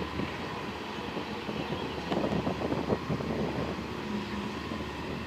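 Heavy construction machinery such as an excavator running steadily, with a stretch of metallic clattering about two seconds in.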